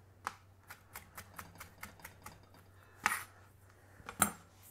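Chef's knife chopping a green chilli on a plastic chopping board: a quick run of light taps, about five a second, then two louder knocks in the second half.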